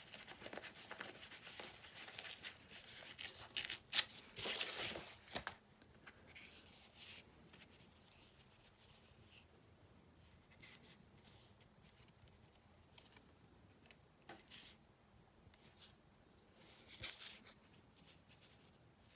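A sheet of gel-printed paper torn by hand in a run of short rips over the first five seconds or so, with a sharp snap about four seconds in. Then only soft rustles and light taps as the torn scrap is handled and placed.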